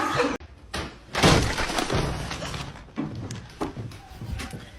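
A few separate thuds and knocks, the loudest about a second in.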